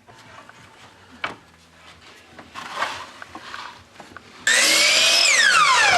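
Light knocks and handling of wood, then about 4.5 s in an electric power saw starts up suddenly and loud, its whine climbing for under a second and then sinking steadily as the blade winds down.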